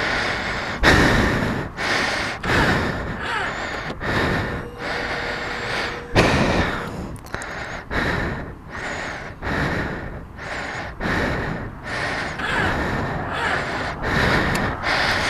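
A man panting heavily close to the microphone: loud, quick breaths coming about once a second, winded from pushing a heavy motorcycle by hand.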